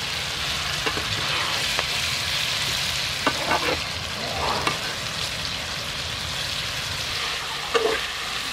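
Duck eggs and ovaries sizzling in a frying pan with a steady hiss, water just added, while a metal spatula stirs them. The spatula scrapes and knocks against the pan several times, loudest near the end.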